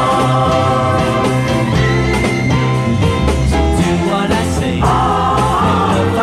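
A 1970 pop single playing: a band with bass and guitar, and voices singing held notes, with no clear words.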